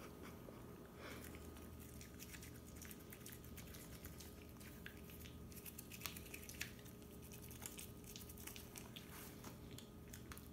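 Faint, irregular scratching and clicking of a toothbrush scrubbing a Samoyed's teeth.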